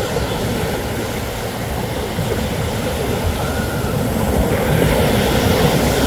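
Steady low rumbling outdoor noise without any clear pitch, growing somewhat louder over the last couple of seconds.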